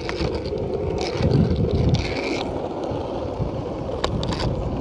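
Longboard wheels rolling over coarse asphalt: a steady rumble, with a sharp click or two about four seconds in.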